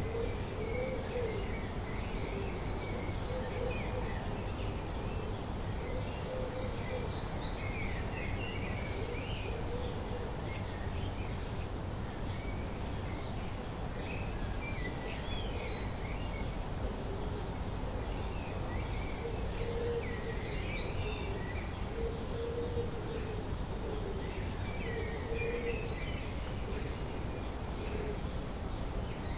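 Dawn chorus of birds: short bird-song phrases with high twittering and trilled notes recur every five or six seconds, over a steady low background rumble.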